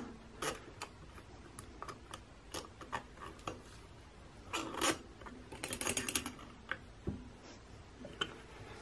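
Light scattered clicks and taps as the trolling motor's long through-bolts and plastic housing are handled during reassembly. A louder knock comes just before five seconds in, followed by a quick run of rattling ticks.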